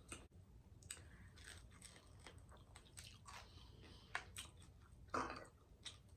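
Close-miked chewing and biting into crispy fried croaker fish: faint, scattered crunches and wet clicks of the mouth, with a slightly louder crunch about five seconds in.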